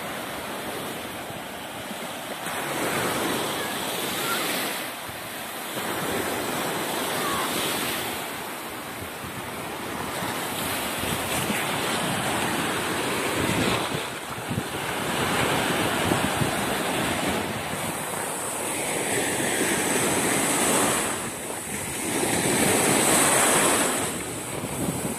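Sea surf on a sandy beach: small waves breaking at the shoreline and foam washing in and out, the rushing swelling and easing every few seconds, with wind on the microphone.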